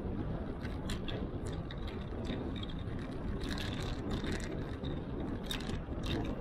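Wind rumbling over an action camera's microphone on a moving bicycle, with irregular small clicks and rattles from the bike.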